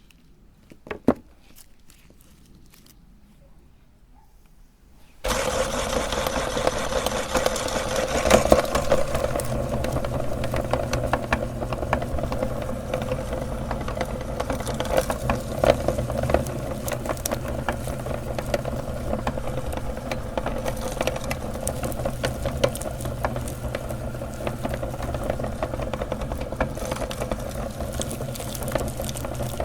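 Electric meat grinder switched on about five seconds in, its motor then running steadily with occasional louder crunches as it grinds candy. A single sharp click comes about a second in.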